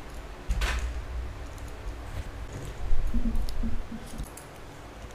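Leather harness pieces and metal buckle straps being handled and set down on a cutting mat: scattered light clicks and knocks, with a thump about half a second in and a louder stretch of knocks around three seconds in.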